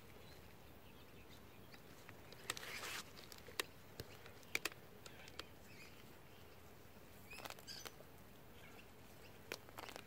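Gloved hand scratching and rustling through dry straw mulch and loose soil, with scattered sharp crackles of dry straw, while uncovering potato tubers in a garden bed.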